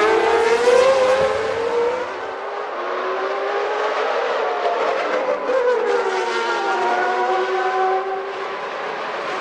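Early-1990s Formula One racing cars running at high revs, the engine pitch rising and falling as they accelerate, change gear and go past.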